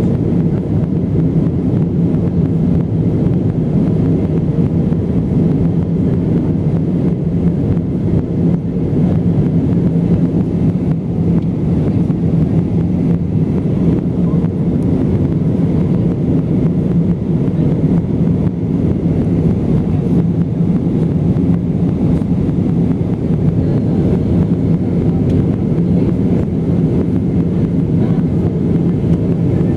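Steady low rumble of an Airbus A320's jet engines and rushing air during its takeoff climb.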